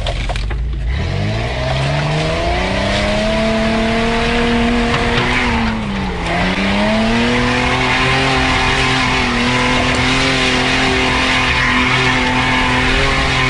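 Off-road 4x4's engine revved hard and held at high revs, dipping briefly about halfway through, with a hiss of tyres spinning in mud as the vehicle struggles for grip on the muddy trail.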